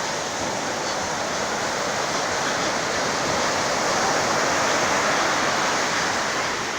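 Heavy surf breaking on a beach: a continuous rushing wash of waves that swells louder a few seconds in and eases off near the end.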